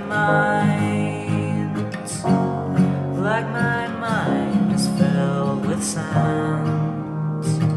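Music: a passage of the song led by acoustic guitar, with sustained notes and some sliding pitches.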